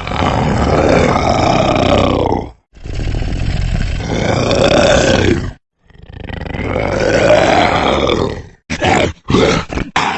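Edited monster-voice sound effect for the Yowie, the ape-man of Australian folklore: three long, rough roars, each about two and a half seconds, then a quick run of short grunts near the end.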